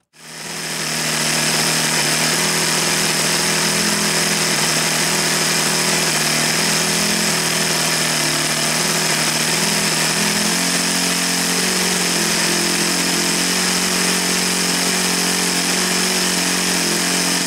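OS FS-40 Surpass single-cylinder four-stroke glow engine running at a steady speed on a test stand, its propeller spinning. The engine is being run to bring it up to operating temperature.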